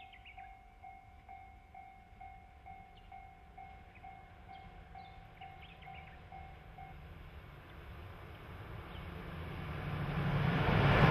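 A warning bell pulses about twice a second and stops about seven seconds in. Under it, the low rumble of an approaching DF200 diesel-electric locomotive hauling a container freight train grows steadily louder toward the end.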